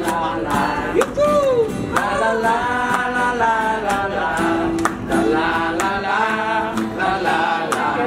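A group singing a Thai song together in unison, a man's voice leading, with hand clapping.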